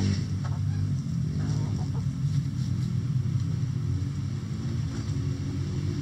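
A steady low engine drone is the loudest sound, with a few clucks from backyard chickens over it.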